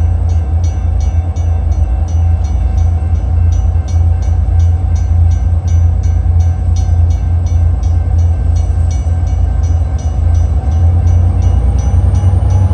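Diesel freight locomotives approaching under power, a loud steady low rumble, with the locomotive bell ringing about three strokes a second.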